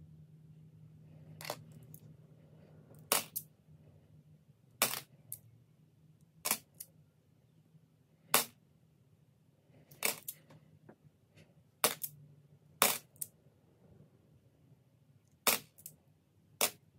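Australian $1 coins clicking as they are set down one at a time while being sorted, a sharp metallic click every second or two, some in quick pairs. A low hum fades out in the first few seconds.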